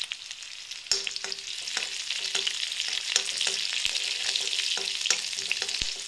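Sliced shallots, dried red chillies and curry leaves sizzling in hot oil in a nonstick kadai, the tempering (tadka) for a curry. A spatula knocks into the pan about a second in and then stirs, scraping against the pan about twice a second.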